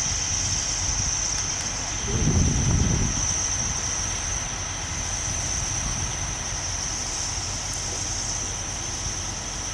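Steady low engine rumble of a motor vehicle under a constant high hiss, with a louder low rumble swelling about two seconds in and fading by three.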